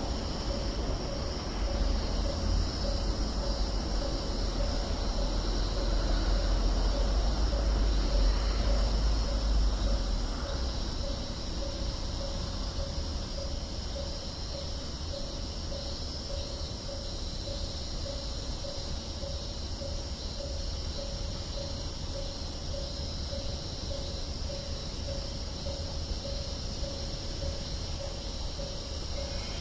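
Railway level-crossing warning bell ringing on and on in an even, repeating beat. Under it, the low rumble of a Gotemba Line train is loudest for the first ten seconds or so and then dies away.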